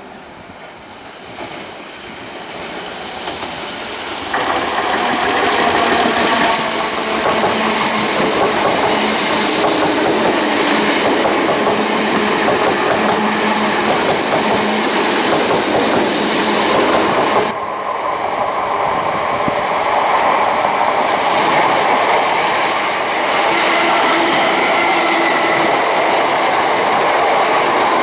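Electric multiple-unit passenger trains passing close by, their wheels running on the rails. The noise builds over the first few seconds, jumps up sharply about four seconds in and stays loud and steady. About two-thirds of the way through it breaks off suddenly and comes straight back as another train passes.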